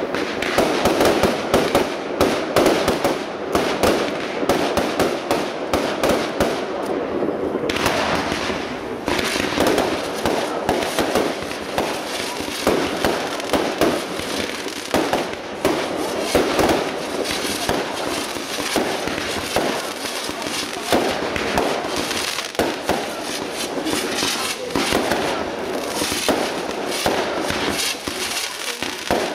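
Aerial fireworks going off in a rapid, unbroken barrage of bangs and bursts as effects launch and explode one after another.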